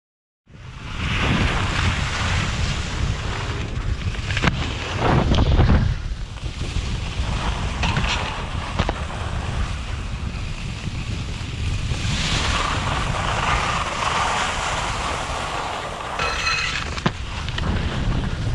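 Wind buffeting an action camera's microphone while skiing at speed, a low rumble mixed with the hiss of skis sliding and scraping on firm snow. It starts suddenly about half a second in, with a few small knocks and a brief high tone near the end.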